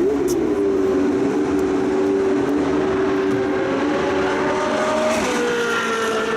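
Car engine running at steady revs, a sustained pitched note that steps down in pitch about five seconds in.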